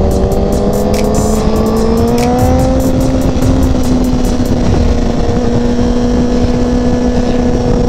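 Honda CBR1000RR sport bike's inline-four engine pulling steadily in gear, its pitch rising slowly as the bike accelerates, with wind rushing over the microphone.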